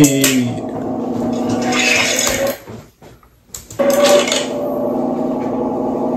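Closing sound sting of a music video playing back: two held electronic chords, each with a rushing sweep, separated by a short near-silent gap about two and a half seconds in.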